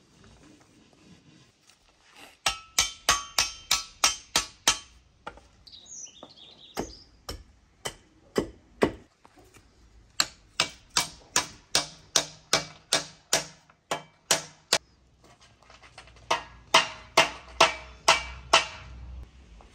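Quick hammer blows on a steel scythe blade and its fitting, set on a wooden stump while the blade is fixed to its handle. The blows come in four runs of rapid, even strikes, each with a short metallic ring.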